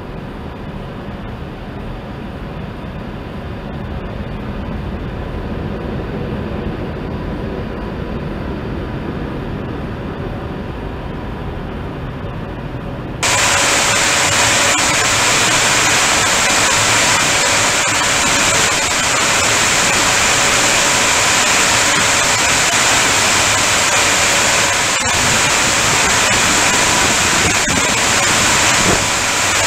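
Automatic car wash gantry running over a car: a muffled, low rumble heard from inside the car, then, after a sudden switch about 13 seconds in, a loud, steady hiss heard from outside the car.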